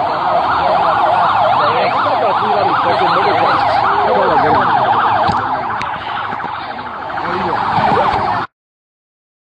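Emergency siren wailing up and down rapidly, about twice a second, which cuts off suddenly near the end.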